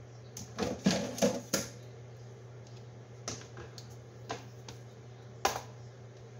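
Kitchenware handled and set down on a granite countertop: a quick run of clicks and knocks about a second in, then a few single knocks, the sharpest about five seconds in, over a steady low hum.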